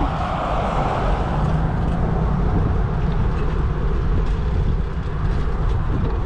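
Steady rushing wind and road noise from riding a bicycle, with wind rumbling on the microphone, a little louder for the first second or two.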